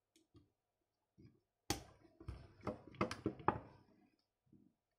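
Hard plastic parts of an Acid Rain World Stronghold mech toy clicking and knocking as it is handled and a stiff, painted-shut port is pried at. A sharp click comes about two seconds in, followed by a quick run of smaller clicks.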